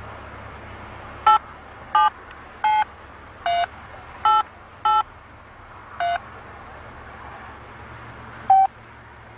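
Touch-tone keypad beeps of a cellular car phone handset being dialled: eight short beeps at uneven spacing, the last one after a pause of about two seconds.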